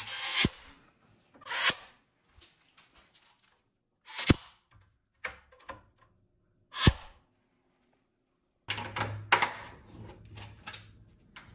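Sharp knocks and clatters a second or more apart, each ringing briefly, from kitchen cabinet parts being handled. About nine seconds in a steady low hum starts, with more clattering over it.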